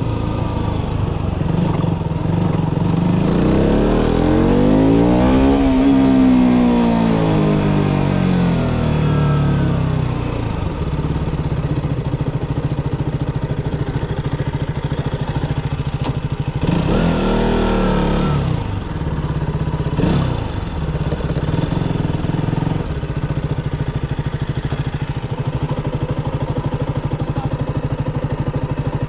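KTM Duke motorcycle engine running at low revs while ridden slowly through tight cone manoeuvres, its pitch rising and falling as the throttle is opened and closed, once about three seconds in and again past the midpoint.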